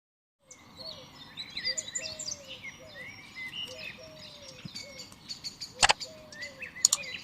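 Several small songbirds chirping and calling over one another, a dense mix of short rising and falling notes. Two sharp clicks sound about a second apart near the end.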